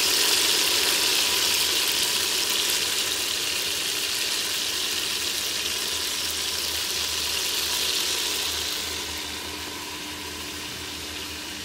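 Chicken pieces frying in olive oil in the open inner pot of an electric pressure cooker: a steady sizzle, growing a little quieter about nine seconds in.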